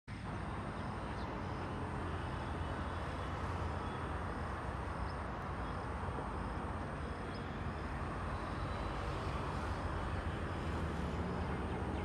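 Steady low outdoor rumble, with its weight in the deep bass, of the kind distant road traffic or wind makes.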